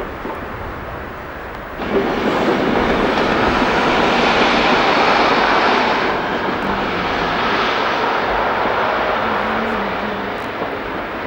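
Diesel train running under power. The loud engine noise comes in suddenly about two seconds in, then slowly eases off.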